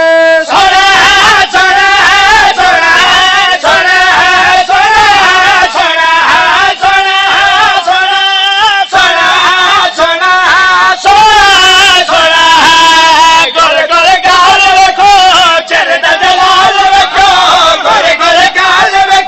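A man's voice singing a Punjabi devotional chant, amplified through a microphone, in long wavering held notes with short breaks.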